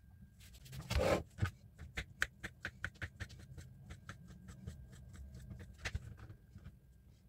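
Knife slicing a peeled banana on a plastic cutting board, the blade clicking against the board in a quick even run of about four to five taps a second. A louder thump about a second in.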